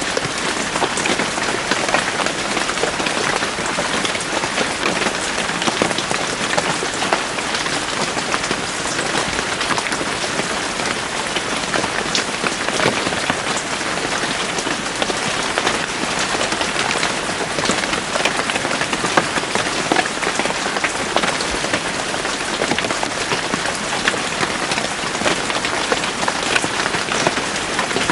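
Steady rain falling in a forest, a dense patter of drops on leaves and ground.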